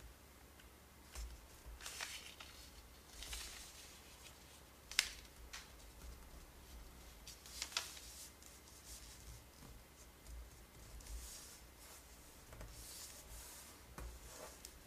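A square of origami paper being folded along its diagonal by hand and the crease pressed flat, heard as soft, scattered rustles and swishes of fingers sliding over the paper. There are sharp crackles about five seconds in and again near eight seconds.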